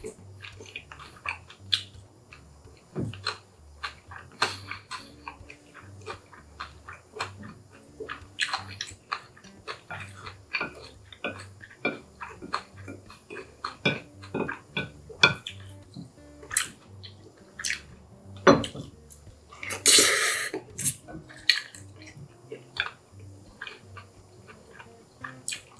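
Close-miked eating sounds: chewing and slurping of Chapagetti black-bean noodles and green-onion kimchi, with a wooden spoon and chopsticks clicking and scraping against a ceramic bowl. A louder noisy burst of about a second comes around twenty seconds in.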